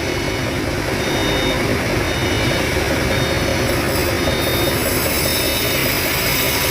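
Engine-driven sawmill machinery running steadily, a continuous even engine noise.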